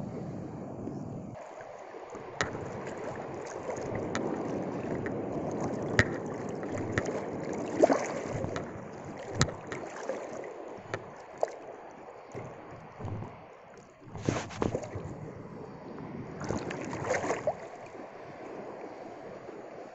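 Sea waves surging and sloshing around a wading angler, with wind on the microphone. A few sharp knocks come through, and two louder rushing surges arrive about fourteen and seventeen seconds in.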